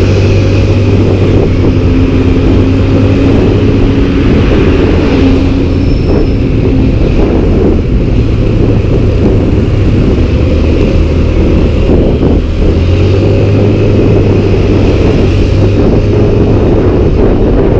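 Yamaha MX 125 motorcycle engine running steadily at cruising speed, its low hum shifting slightly in pitch a few times, under continuous wind noise on the microphone.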